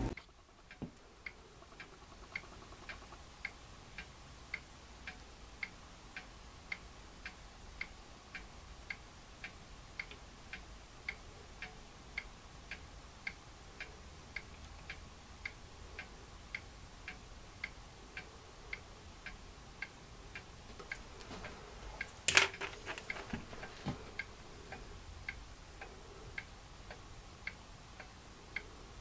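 A mechanical clock ticking steadily, about two ticks a second. A little past two-thirds of the way through there is one sharp knock, the loudest sound, followed by a few small clicks.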